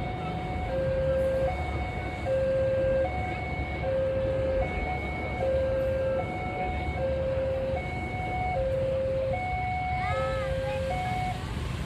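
Railway level-crossing warning alarm sounding a repeated two-tone signal, high and low notes alternating about every 0.8 s, over the low rumble of a passing train and idling motorcycles. A short warbling tone comes about ten seconds in, and the alarm stops near the end.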